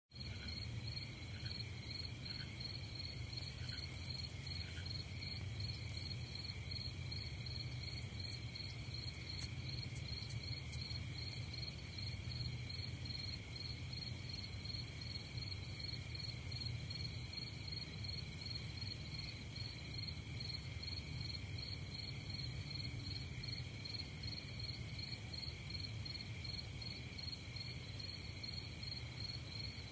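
Night-time chorus of crickets, a steady, fast-pulsing high trill layered in two pitches, over a low steady hum. A few faint sharp clicks come around nine to eleven seconds in.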